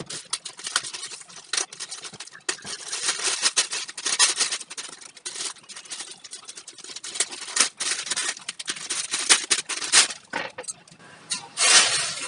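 Thin plastic bag crinkling and rustling as it is pulled off a pedestal fan's base plate, with a louder burst of crinkling near the end.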